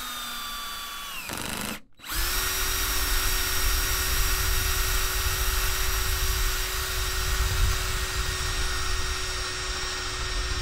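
Cordless drill turning a hole saw as it cuts through the plastic wall of a battery box. It runs briefly, stops for a moment just under two seconds in, then starts again and runs steadily at one speed with a constant motor whine over the cutting noise.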